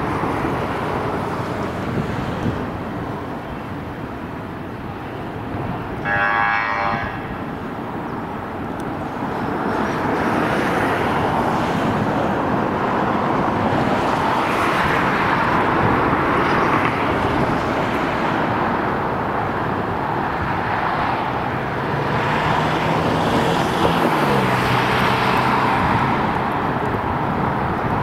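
Airbus A380 on final approach, a steady jet rumble that grows louder as it nears, mixed with road traffic noise. A brief high tone sounds about six seconds in, and a lower engine note drops in pitch near the end.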